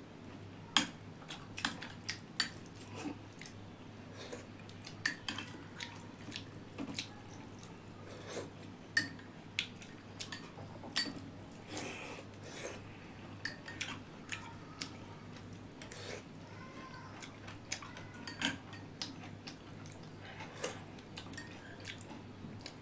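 Metal spoon clinking and scraping against a stainless-steel bowl and plate while eating, in irregular sharp clicks with a few louder clinks.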